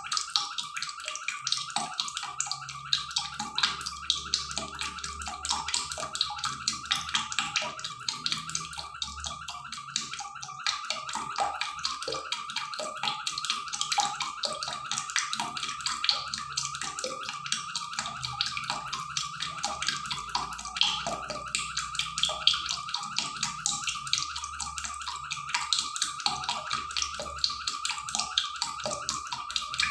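Pot of duck wings in broth simmering on the stove, the liquid bubbling steadily with a dense run of small pops.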